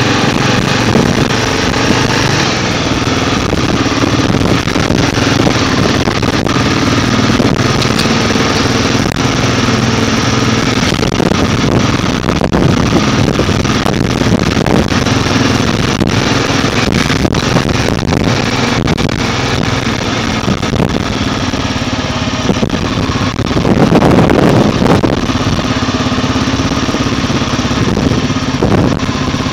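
Motorcycle engine running steadily at cruising speed, heard from on the moving bike under a broad rushing noise. A louder rush of noise swells for about a second, about five seconds before the end.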